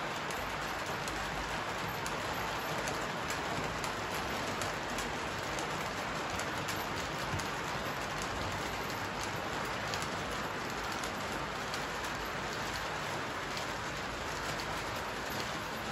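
Model trains rolling on metal track: a steady rushing rumble of many wheels, with a constant patter of fine clicks.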